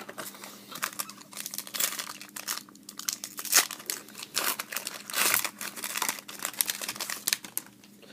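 Plastic-foil trading card pack wrapper being torn and crinkled by hand, in irregular rustling bursts.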